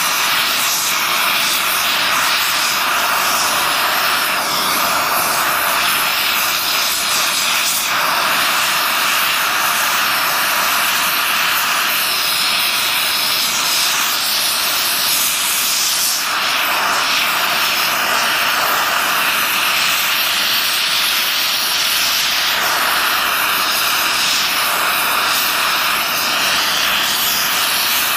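Oxy-fuel torch flame hissing steadily while it heats the braze joint on a cast iron pump housing, as braze rod is melted into the crack.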